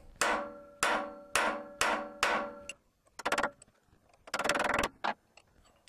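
Hammer striking a steel rivet set held on a cold rivet over a rail-section anvil, heading the rivet. Five ringing metal blows about half a second apart, then two short bursts of fast, light rattling taps.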